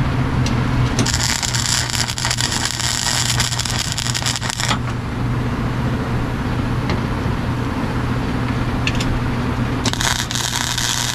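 A cutting torch working on car sheet metal: two spells of harsh, crackling hiss, one starting about a second in and lasting nearly four seconds, another near the end, over a steady low hum.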